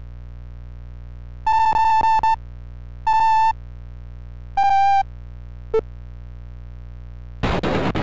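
Three short buzzy synthesized electronic tones over a steady low electrical hum: the first stutters on and off, the second is brief, the third sits slightly lower, followed by a quick blip. Music starts just before the end.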